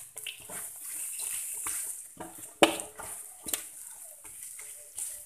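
Ground spice paste frying with a steady sizzle in a wok while a spatula stirs it, scraping and knocking sharply against the pan several times, the loudest knock about halfway through. This is the spice paste being sautéed with galangal and lemongrass until cooked and fragrant.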